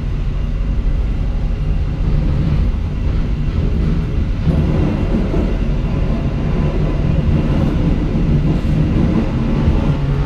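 Diesel-hauled passenger train running on the rails: a steady engine drone under continuous wheel-and-track rumble, which grows rougher about halfway through.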